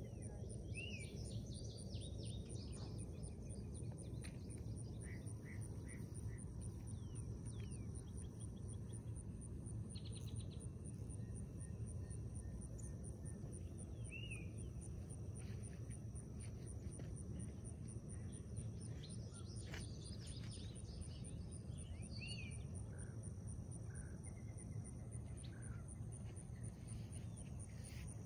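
Outdoor ambience of insects trilling steadily in a high, fast-pulsing drone, with a few short bird chirps scattered through it over a low, steady background rumble.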